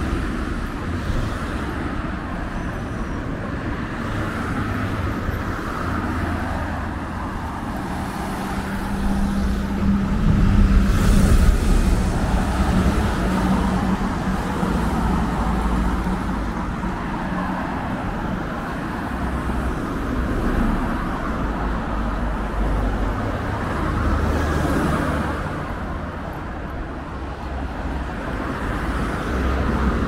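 Road traffic on a city street: car engines running and vehicles passing, one of them loudest about ten seconds in and another near the end.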